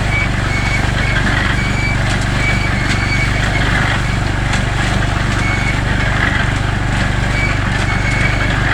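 Concrete mixer running steadily: a low engine hum with repeated short, high squeaks and light clatter as the drum turns.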